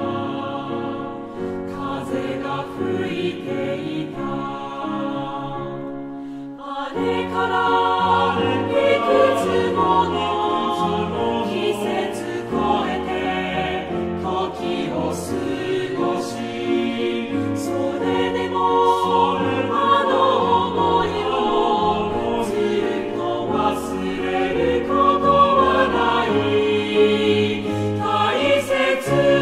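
Background music with choir-like singing: sustained chords that change every couple of seconds, softer at first, then fuller and louder about seven seconds in, with light percussion taps.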